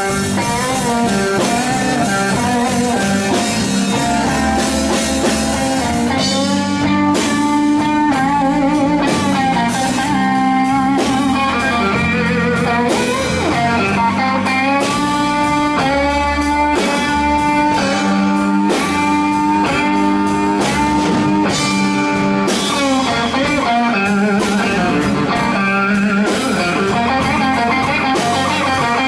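Slow blues played by a band: an electric guitar solo of bent, wavering notes over bass and drums.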